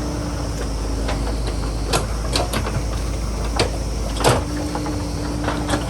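JCB backhoe loader's diesel engine running steadily as it works, with about five sharp knocks scattered through, the loudest a little past four seconds in.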